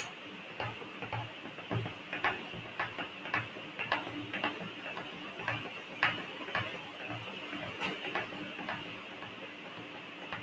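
Light, irregular clicks at a desk, about one or two a second, some with a soft knock, over a faint steady hum.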